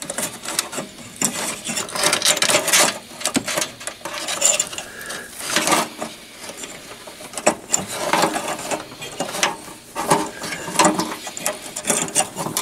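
Test leads and probes being pulled by hand out of the storage compartment of a Hewlett Packard 410A voltmeter, the cables dragging and knocking against the metal cabinet: irregular scraping, rattling and clicks.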